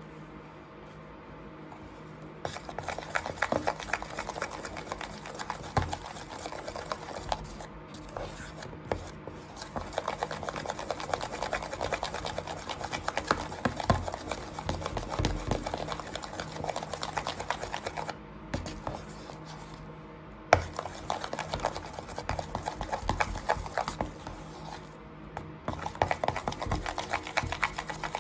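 A plastic spoon stirring and working thick shampoo-and-baking-soda slime in a plastic tub, giving rapid, sticky crackling clicks. The stirring comes in long spells, starting a couple of seconds in and pausing briefly twice in the later part.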